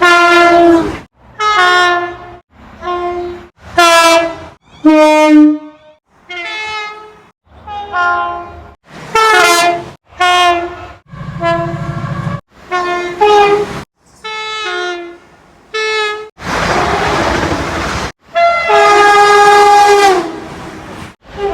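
A quick run of about fifteen short British main-line train horn blasts, cut one after another. They are the two-tone horns of diesel freight locomotives and passenger multiple units, each sounding for about a second, some stepping between a high and a low note. About two-thirds of the way through comes a stretch of rushing noise with no horn.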